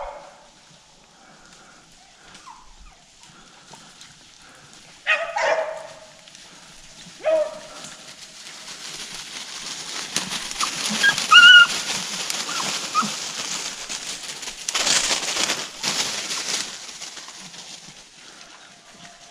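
Hunting dogs giving a few short, loud bays or yelps, one at the start and two more about five and seven seconds in. Then comes a long stretch of crackling, rustling noise that grows loudest near the middle and fades out toward the end.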